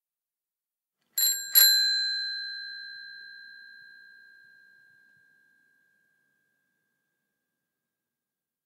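Bicycle bell struck twice in quick succession about a second in, its bright ring fading away slowly over several seconds.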